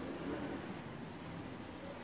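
Faint squishing and plastic-glove rustle from gloved hands squeezing water out of grated white radish, over a steady low room hum.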